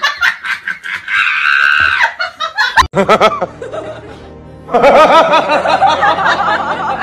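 Human laughter over background music. The laughter drops away briefly about four seconds in, then comes back.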